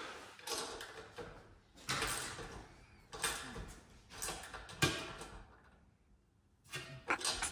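Handling noise from work on a large rear wing bolted to a car's boot lid: a few irregular scrapes and knocks about a second apart, then a quieter spell near the end.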